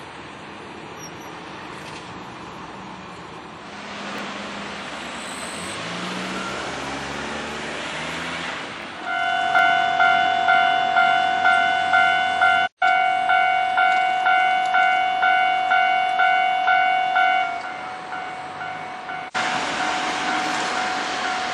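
A Japanese level crossing warning bell ringing in quick repeated dings, about two a second, starting about nine seconds in. Before it, a passing electric train's running noise swells.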